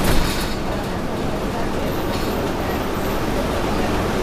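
RTS transit bus heard from inside while under way: steady engine and road rumble, with a few sharp rattling clicks at the very start.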